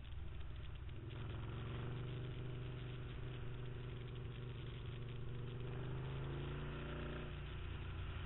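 Can-Am Spyder three-wheeler's engine running steadily at low speed as it is ridden along, with a constant rush of wind and road noise; the engine note eases slightly near the end.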